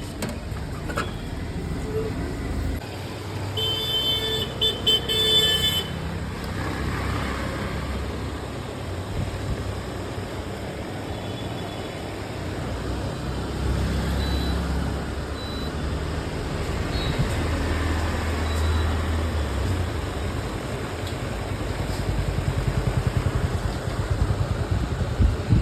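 Road traffic running steadily, with a vehicle horn tooting several short times about four to six seconds in.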